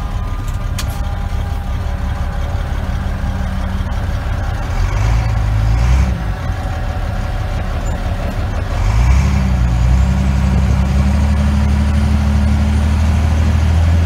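Truck engine heard from inside the cab, its note rising as it pulls harder about five seconds in, easing back a second later, then rising again near nine seconds and holding steady and louder, while keeping pace beside a forage harvester chopping corn.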